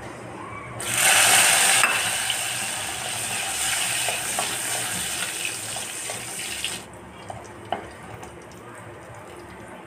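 Raisins dropped into hot ghee in a clay pot start sizzling about a second in, loudest at first and then easing off, and cut off suddenly near seven seconds. After that a few light clicks of the spatula against the pot.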